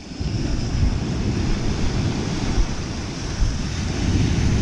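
Ocean surf breaking and washing up the sand, with wind buffeting the microphone throughout.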